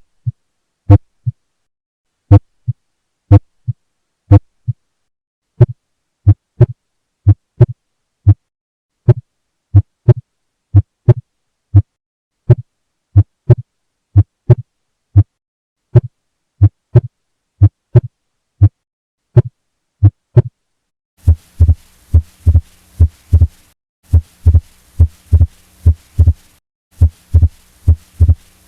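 Human heartbeat heard through a stethoscope: regular lub-dub pairs of short thuds with silence between them, quickening from about six seconds in. Near the end, in what sounds like another recording, a steady hiss and a low hum run between the beats.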